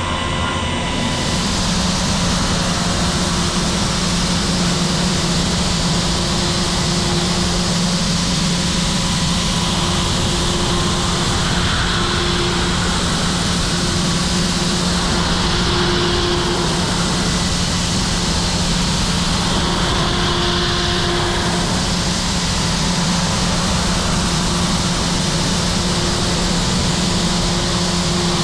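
Heller CP 6000 five-axis machining center finish-milling a pump housing with a long tapered end mill: a steady loud rush of the cut with a low spindle hum underneath and a fainter higher tone that comes and goes.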